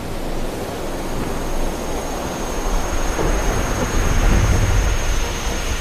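Thunder sound effect: a long low rumble that swells to its loudest about four seconds in.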